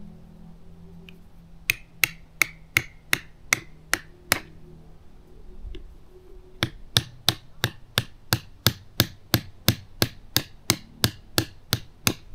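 A rock used as a hammer striking a tent stake, driving it into gravel ground. A run of about eight sharp strikes, a pause of about two seconds, then a longer steady run at about three strikes a second.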